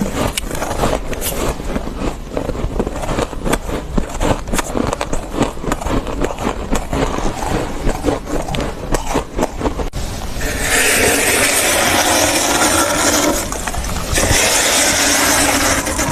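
Fluffy freezer frost crunching in a rapid, irregular run of crisp crackles. About ten seconds in it changes to two long scraping strokes through the frost, a few seconds each with a short pause between them.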